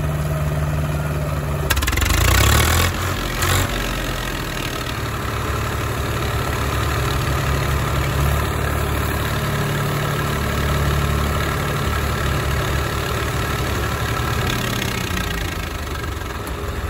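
Swaraj 744 FE tractor's three-cylinder diesel engine running steadily at low revs, with another tractor engine running behind it. About two seconds in there is a brief louder surge of noise.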